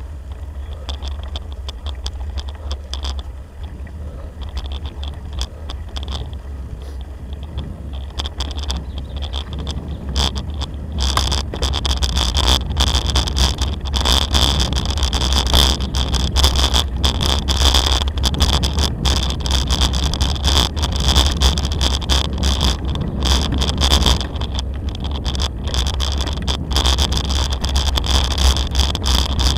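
Bicycle tyres rolling along a dirt-and-gravel track, with wind rumbling on the microphone. About ten seconds in the sound grows louder and crunchier, with many small clicks and rattles, as the tyres run onto loose gravel.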